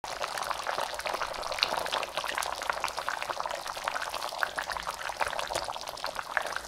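Thick tomato-based chicken stew simmering in a pan, giving a steady crackle of small popping bubbles. Cream is poured into it partway through.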